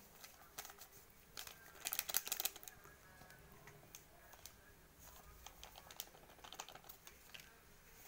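Crinkling of a paper sachet of raising agent being emptied into the bowl and small crackling clicks of hands mixing soft butter dough, with a denser, louder burst of crackling about two seconds in.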